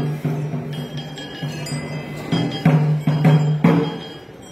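A low-pitched metal bell struck again and again, each stroke ringing on and fading. The strokes are spaced out at first, then a quicker run of about four louder strokes comes in the second half.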